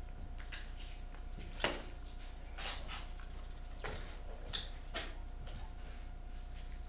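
Scattered single shots from airsoft guns, sharp clicks and snaps at irregular intervals, the loudest about one and a half seconds in, over a faint steady hum.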